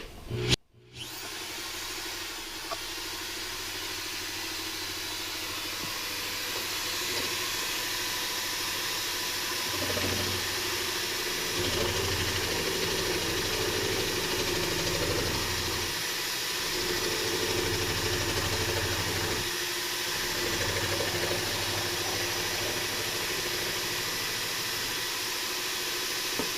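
Sewing machine converted into a jigsaw, driven by a half-inch Milwaukee electric drill, running steadily as its reciprocating blade cuts plywood. From about ten seconds in, a lower hum comes and goes in several stretches.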